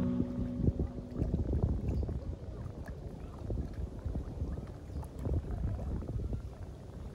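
Small waves lapping and splashing against the stone edge of a pond, with a low gusty rumble of wind on the microphone.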